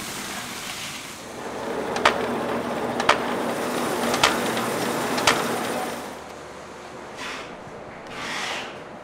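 Fried dough twists pour out of a metal bowl onto a heap with a dry hissing clatter. Then a dough-sheet cutting machine runs with a steady hum, and four sharp knocks come about a second apart. Near the end two soft brief rustles are heard as dough is handled.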